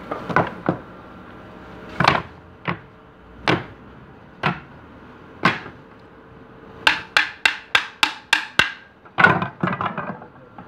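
Wooden pallet boards and stringers knocking and clacking as they are handled and laid onto a pallet frame: single knocks every second or so, then a quick run of about eight sharp strikes, some five a second, past the middle, and a cluster of knocks near the end.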